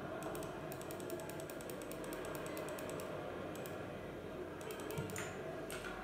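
Typing on a backlit computer keyboard: a fast run of key clicks for a couple of seconds, then a few scattered keystrokes.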